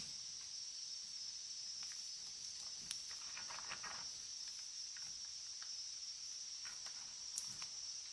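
Faint, steady high-pitched trill of crickets, with a few light clicks and a brief rustle of handling in between.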